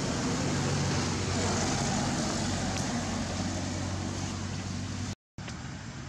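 A motor vehicle's engine running steadily, with a broad rushing noise over a low hum. It cuts off suddenly about five seconds in, and a quieter stretch of the same noise follows.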